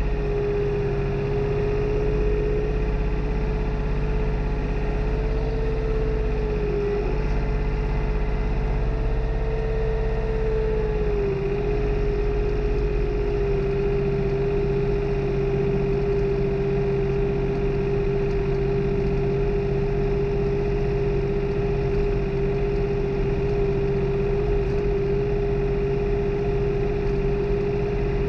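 New Holland tractor's engine running steadily under load while tilling a field, heard from the operator's seat, with a strong droning tone. The pitch sags briefly about seven seconds in and again about eleven seconds in as the load changes.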